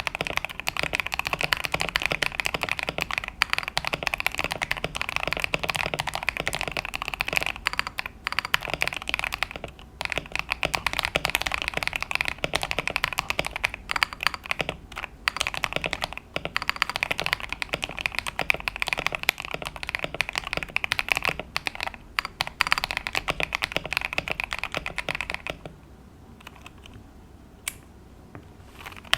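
Fast typing on a mechanical keyboard fitted with Epomaker Dawn Pink switches: a dense run of keystroke clacks that stops a few seconds before the end, followed by a single lone click.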